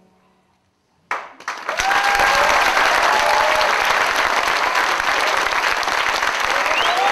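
After about a second of near silence, an audience starts applauding, loud and steady, with a few cheering voices among the clapping.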